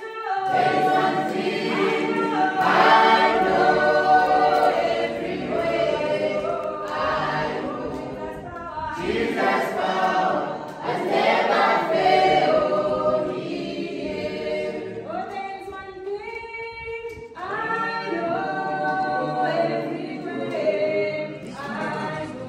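A choir singing a cappella, several voices holding notes in harmony, in phrases with short breaks between them.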